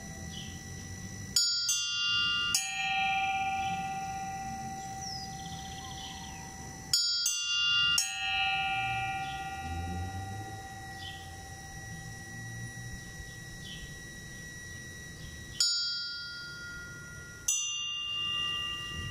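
Bells tolled by hand for a death knell (toque de difunto): slow pairs of strokes, a higher bell and then a deeper one, three times, each stroke left to ring out and fade over several seconds.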